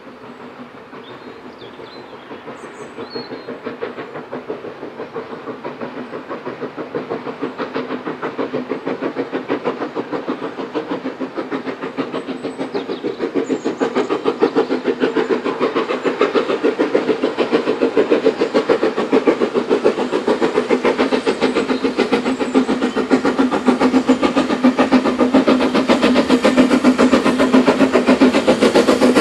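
BR Standard Class 4 4-6-0 steam locomotive approaching under power, its two-cylinder exhaust chuffing in a fast, steady beat that grows steadily louder as it nears.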